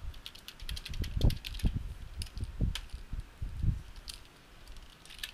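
Typing on a computer keyboard: quick, irregular key clicks that pause about four seconds in.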